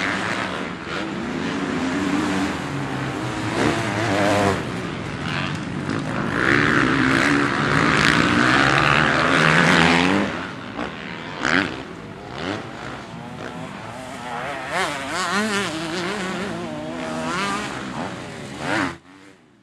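Motocross dirt bike engine revving hard, its pitch rising and falling repeatedly as the rider works the throttle, heard together with the whine of the chasing FPV drone's propellers. It is loudest partway through and cuts off suddenly near the end.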